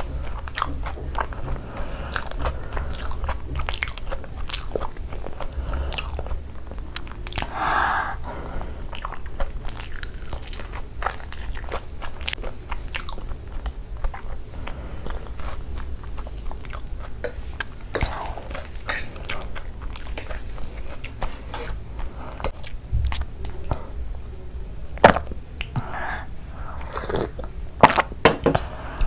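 Close-miked chewing of a mouthful of Cheetos-crusted fried cheese ball, with crunchy clicks and mouth smacks throughout and a few sharper clicks near the end.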